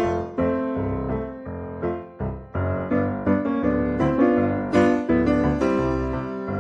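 Background piano music with a bass line, notes struck at a steady beat.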